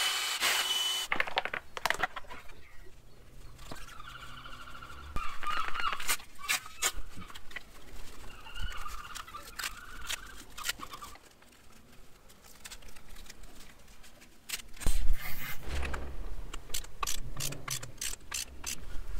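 Metal parts of a motorcycle front wheel, spacers and axle clinking and knocking as they are fitted, with two stretches of wavering squeak.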